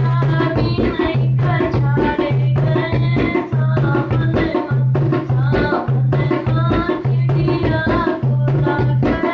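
Indian folk song music (a Sawan song) with a steady tabla-like hand-drum rhythm and a melody over it.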